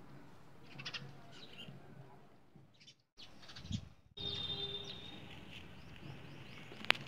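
Small birds chirping now and then over quiet outdoor background noise, with a single sharp click near the end.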